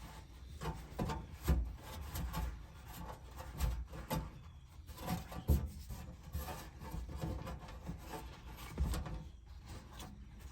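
Irregular scraping and rubbing with scattered light knocks from parts and tools being handled during hands-on work on a truck. The sharpest knocks come about a second and a half, five and a half and nine seconds in.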